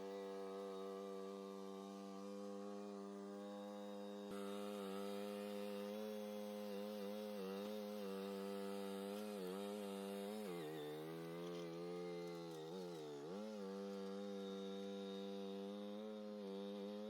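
Mini skid steer engine running at a steady high speed, its pitch dragging down briefly twice as the machine takes on hydraulic load.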